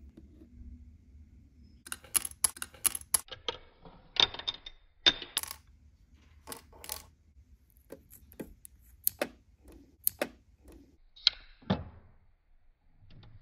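Tiny plastic and metal dollhouse kitchen miniatures clicking and tapping as they are handled and set down on a toy countertop: a string of light, sharp clicks, several coming in quick runs and pairs.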